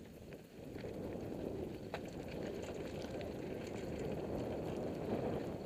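Mountain bike rolling down a dry dirt and gravel trail: steady tyre noise on loose ground with small clicks and rattles, getting louder over the first second as speed builds.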